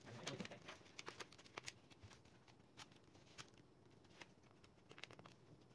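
Faint, irregular clicks as a thin card pries the plastic display bezel of a Dell Inspiron 5391 laptop away from the screen panel, its clips snapping loose. The clicks are thickest in the first two seconds, with a few more later.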